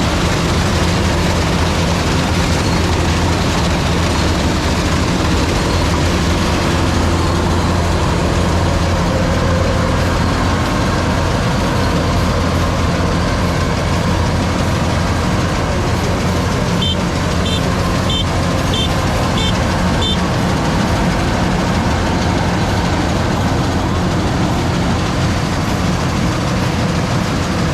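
A heavy engine running steadily at a constant speed. About two-thirds of the way through, six short high beeps sound in a row, evenly spaced.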